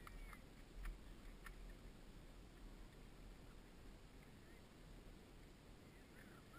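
Near silence, with a few faint ticks and a couple of faint short chirps; no engines running.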